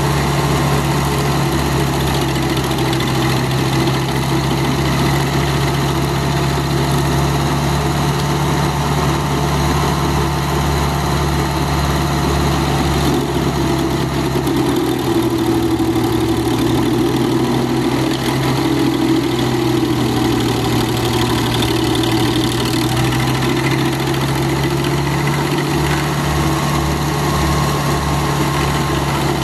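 Vermeer 630 stump grinder's air-cooled engine running steadily as the cutter wheel works against a stump. About halfway through the engine note drops a little as it takes load, and it comes back up near the end.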